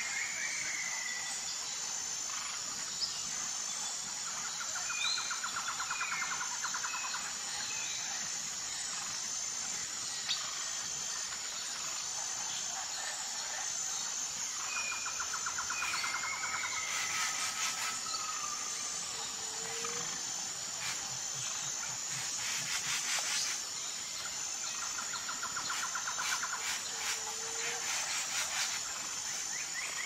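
Forest birdsong: scattered short chirps and whistles, with a rapid trill lasting a couple of seconds that recurs about every ten seconds, over a steady high-pitched insect drone.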